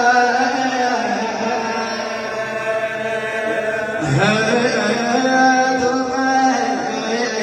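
Male radood chanting a Shia lament (na'i) in long, drawn-out melismatic notes without clear words, sliding up into a new held note about four seconds in.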